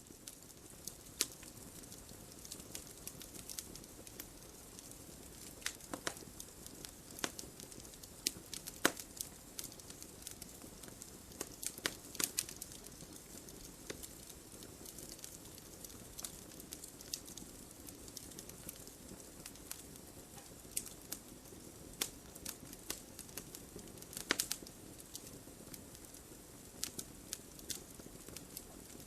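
Wood fire crackling: a soft steady hiss of burning with irregular sharp snaps and pops, a few of them louder, about 1, 6, 9, 12 and 24 seconds in.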